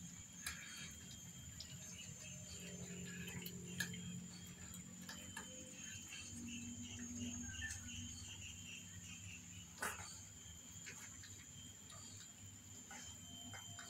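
Kittens and cats eating food off a tile floor: scattered faint chewing and crunching clicks, with one sharper click about ten seconds in, over a steady high insect drone.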